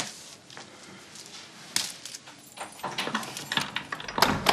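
Scattered small knocks and clicks of objects being handled, a few close together past the middle and a louder knock near the end.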